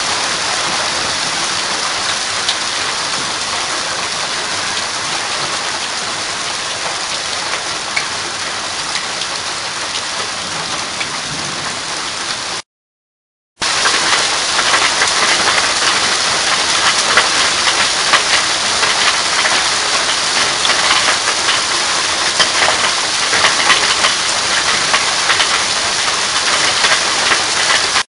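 Hailstorm: hail and rain falling in a steady hiss, with a dense spray of small ticks from stones striking the ground. It drops out for about a second near the middle, then comes back louder and with more ticks.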